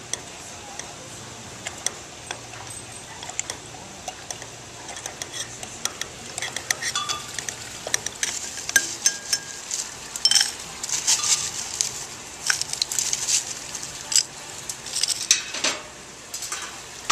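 Mojito being made in tall glasses: a muddler knocking and grinding lime and mint against the glass bottom, with repeated glassy clinks. Near the end, crushed ice clatters from a steel ice bucket into the glasses.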